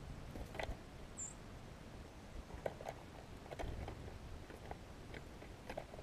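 Small bird hopping and pecking on crusty snow and twigs close to the microphone: irregular light taps and scratches. There is one short, very high call note about a second in.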